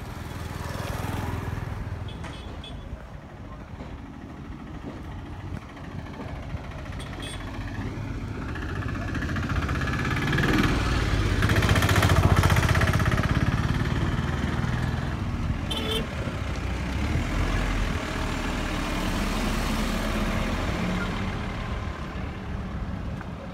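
A small two-wheeler's engine running as it rides through traffic, with road and traffic noise. The sound swells to its loudest about halfway through. A few short clicks are heard along the way.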